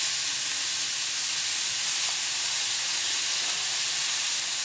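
Raw extra-lean ground beef sizzling in a preheated frying pan: a steady, even sizzle.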